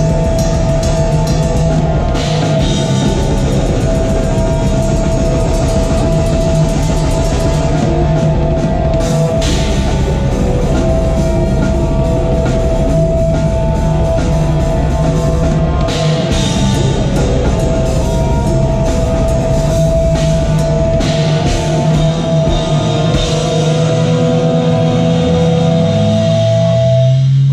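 Metal band playing live: fast drumming with cymbals under electric guitars and bass, with a high guitar note held over it for long stretches.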